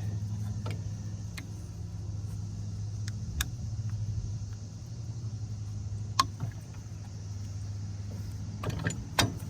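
Sharp clicks and knocks of a metal suspension sleeve and plastic bushing being forced into a tight housing, a few seconds apart and closer together near the end, over a steady low hum. The part is a snug fit and will not slide in.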